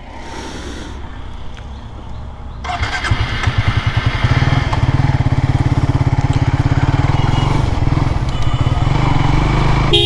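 Motorcycle engine running, getting much louder about three seconds in and then holding a steady low pulsing beat.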